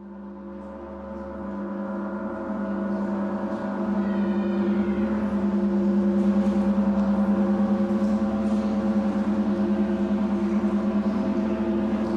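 Large gong played with mallets, swelling from nothing over the first four seconds into a steady, pulsing hum of several held tones. A brief rising shimmer of high overtones comes about four seconds in.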